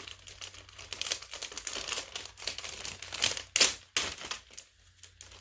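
Plastic packaging bag crinkling in irregular bursts as it is handled and opened, with the loudest crackle about three and a half seconds in.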